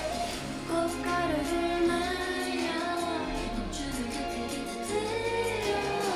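Background music: a song with a singing voice over a backing track with steady bass notes.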